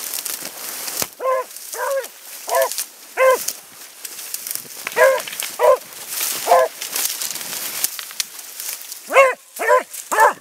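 Beagle baying while running a hare's line: about ten short, high barks in three bunches, each with a quick rise and fall in pitch. Dry brush rustles and crackles steadily throughout.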